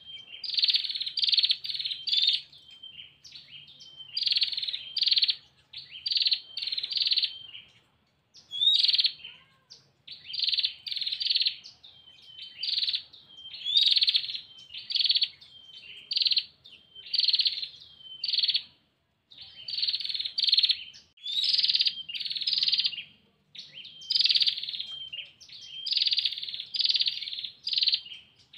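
A female prinia (prenjak) calling to a male with rapid, dry trilling bursts, the 'ngetir' call, repeated over and over in quick groups separated by short pauses.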